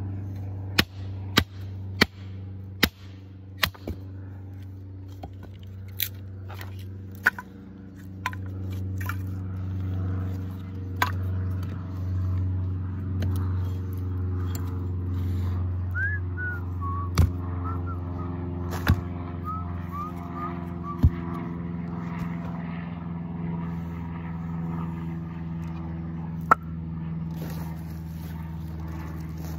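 Sharp knocks of a blade being driven down into a block of wood to split off kindling, five in quick succession, then single strikes spaced several seconds apart. A low, steady engine drone runs underneath, with brief bird chirps in the middle.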